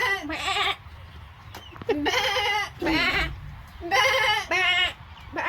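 Goats bleating, about six quavering bleats, mostly in pairs.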